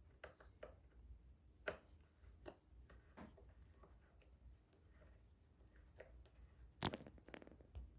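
Faint, scattered clicks and taps of a Phillips screwdriver and small screws working on a motorcycle's plastic headlight cowl, with one sharper, louder click near the end.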